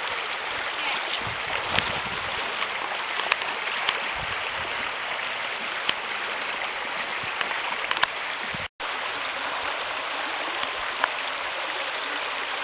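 Steady rushing of a shallow creek running over gravel and stones, with a few brief sharp clicks. The sound drops out for an instant about two-thirds of the way through.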